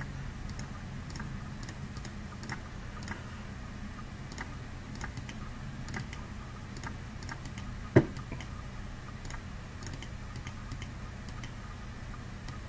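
Computer mouse buttons clicking in quick, irregular succession, a few clicks a second, over a steady low hum. One louder knock comes about eight seconds in.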